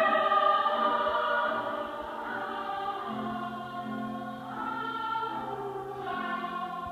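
Treble choir of young women singing sustained chords. Loud at first, then softer about two seconds in.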